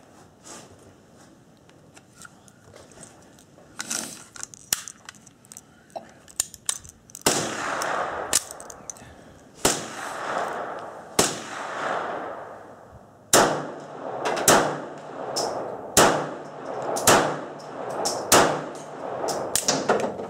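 Polish P-64 pistol firing 9x18 mm Makarov rounds: about nine shots roughly one to one and a half seconds apart, each followed by a short ringing echo. Fainter metallic clicks come before the first shot.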